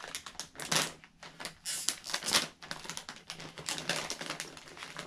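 Plastic snack bag of candy-coated popcorn crinkling and crackling in irregular bursts as it is handled and opened, louder about two seconds in.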